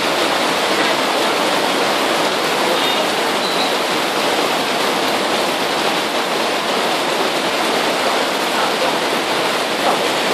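Heavy rain pouring steadily onto a wet, puddled street, a dense, even hiss.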